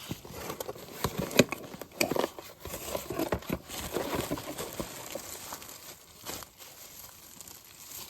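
Plastic crinkling and rustling with scattered clicks and light knocks as parts are handled, busiest in the first few seconds and quieter toward the end.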